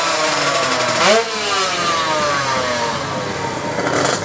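Drag-race motorcycle engine revving at the start line: a sharp rise in revs about a second in, then the revs slowly falling away.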